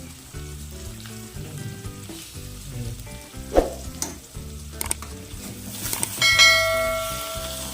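Chicken frying and sizzling in a pan as it is stirred, with a few sharp clicks of the utensil against the pan. About six seconds in a metal utensil strikes the pan loudly and the pan rings on for over a second.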